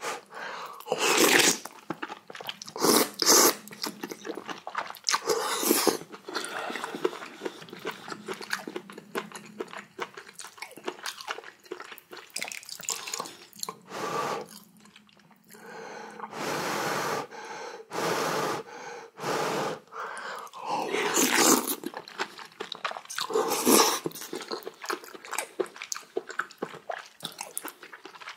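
A person eating close to the microphone: chewing and crunching through seaweed soup with rice and kimchi, with several louder bites and mouthfuls scattered through.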